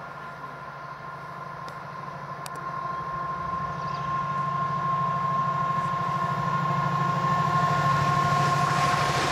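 Freightliner Class 70 diesel locomotive 70006 approaching at the head of a freight train: the deep drone of its GE PowerHaul V16 engine with a steady high whine over it, growing steadily louder as it nears.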